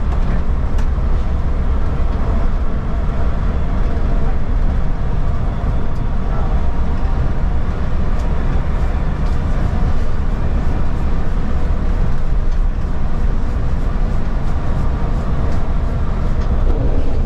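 Steady low rumble of tyre and road noise inside the cabin of a KSRTC Olectra electric bus driving along a highway.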